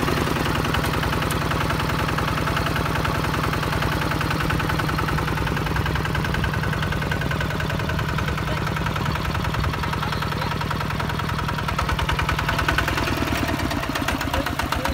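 Single-cylinder diesel engine of a Hinota HG Gold 155 DI walking tractor running steadily with a fast, even knock while it pulls a plough through dry soil.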